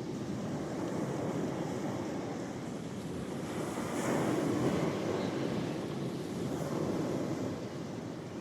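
Sea waves surging and washing on the shore, a steady rush of surf that swells louder about halfway through and eases off a little near the end.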